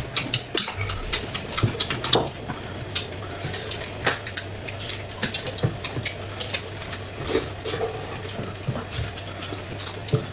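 Close-miked eating sounds: irregular clicks and smacks of chewing, with utensils tapping against dishes, over a steady low hum.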